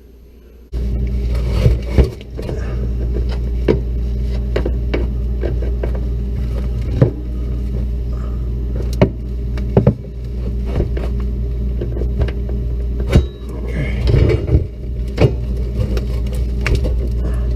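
A motor in a Maytag refrigerator's ice maker assembly is powered up for a test run after its wires were spliced. It starts with a sudden, loud, steady hum, with irregular clicks and knocks over it.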